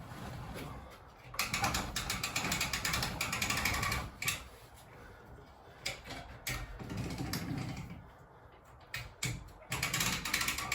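Boat-trailer hand winch being cranked to drag a snowmobile in on a line, its ratchet pawl clicking rapidly in two runs: one starting about a second and a half in, the other near the end.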